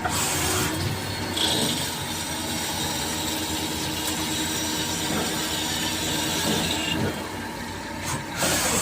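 CNC machine running, with a steady high hiss from about a second and a half in until about seven seconds in.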